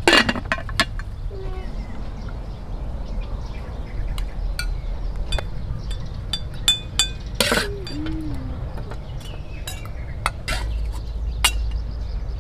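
Metal utensils clinking and scraping on aluminium cookware: a pot lid clanks shut at the start, then a metal spoon scrapes and knocks in an aluminium wok and on a ceramic bowl as stir-fried chaya leaves and beef are served out.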